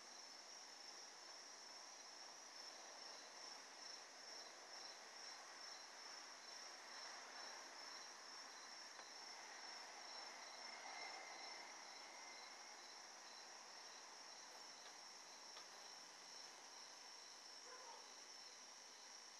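Faint, steady chorus of singing insects: a continuous high trill with a fainter chirp pulsing evenly beneath it.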